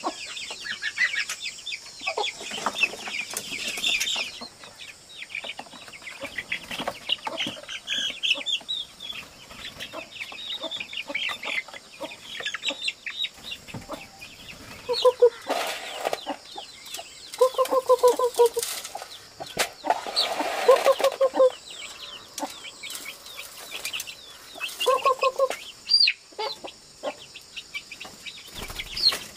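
Young chickens in a bamboo coop: rapid high peeping throughout, then from about halfway several runs of louder, lower clucking calls, with a few short bursts of rustling and wing flapping.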